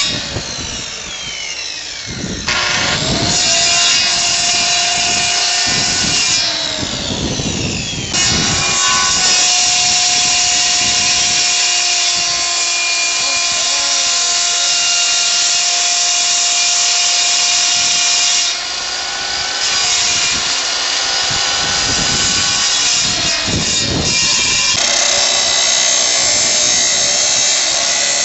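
Handheld electric power tool running in several bursts. Its motor winds down near the start, spins up again, winds down, then runs steadily for about ten seconds with a harsh cutting noise, dips briefly and carries on.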